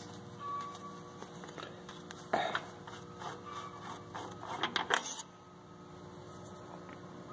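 Light metallic clicks and knocks of hands working at a tractor engine while checking its oil level, a sharper knock about two seconds in and a quick cluster of clicks near the five-second mark, over a faint steady hum.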